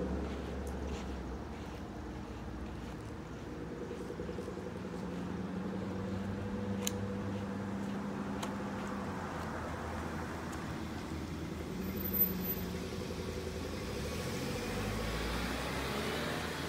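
Motor vehicle engine running with a steady low hum, dying away over the first couple of seconds and then holding steady. A faint click comes about seven seconds in, and a brief louder sound about twelve seconds in.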